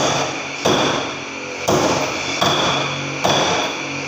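Hand tool striking a plastered wall, about five sharp blows a little under a second apart, each with a brief ringing tail: the wall surface being chipped by hand, without a power tool.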